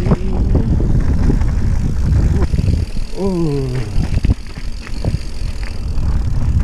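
Mountain bike riding fast over a bumpy dirt and grass trail: wind buffeting the microphone, with the rattle and knocks of the bike over the ground.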